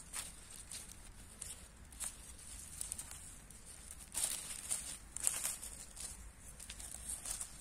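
Wild greens being picked by hand: irregular rustling and tearing of leaves and stems, louder twice about four and five seconds in.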